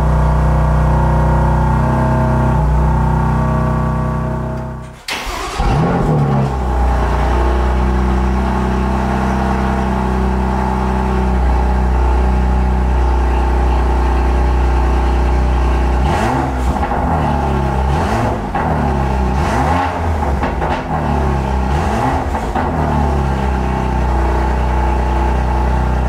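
BMW M2 Competition's twin-turbo straight-six running at a steady cold-start idle on the stock exhaust, fading out about five seconds in. The engine is then heard starting again with Active Autowerke mid-pipes fitted: a sudden start-up, then a steady fast cold idle, with the revs rising and falling several times about two-thirds of the way through.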